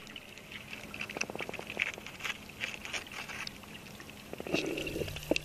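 Light water splashing and sloshing, with many scattered small clicks.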